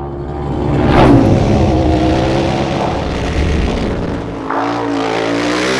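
A vehicle engine revving, swelling to its loudest about a second in, then running on with its pitch sagging and climbing again a little after four seconds.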